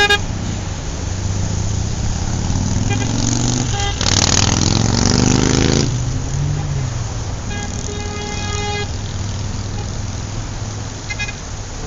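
City road traffic: a steady rumble of engines with car horns tooting several times, one held for about a second. About four seconds in, a loud rushing vehicle pass with rising pitch lasts roughly two seconds.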